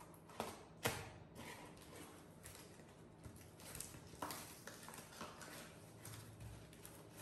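Cardboard carton being cut and opened by hand: scattered clicks and knocks of cardboard and tape, with a sharp snap about a second in and another near four seconds, and faint rustling of the flaps between them.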